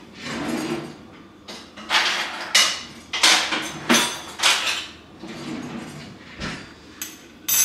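Metal cutlery rattling in a kitchen drawer as a spoon is taken out: a run of clattering knocks, with a sharp high clink near the end.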